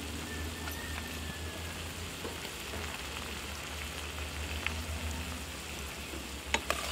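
Chopped tomatoes, sweet peppers and scallions sizzling steadily in a metal frying pan. A couple of sharp clicks near the end, as a spoon touches the pan.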